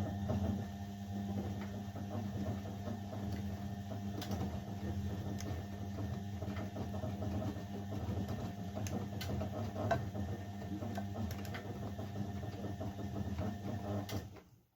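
Blomberg 240W washing machine's motor turning the drum during the wash: a steady hum with scattered light clicks that runs for about fourteen seconds, then stops suddenly, as the drum pauses between turns.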